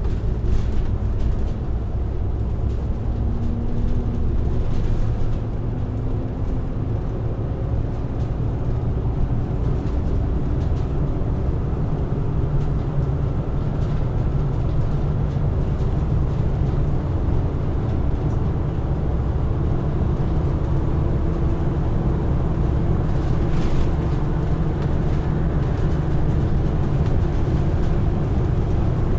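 Diesel engine running steadily, a continuous low-pitched drone with faint hum tones above it.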